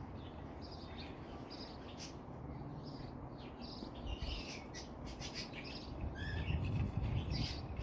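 Birds chirping in an aviary: short high chirps, sparse at first and coming thicker and louder from about halfway through, over a steady low rumble.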